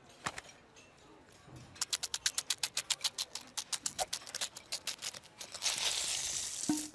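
Exaggerated cartoon eating noises: a fast run of wet lip-smacking chews, about seven a second, then a long hissing slurp near the end.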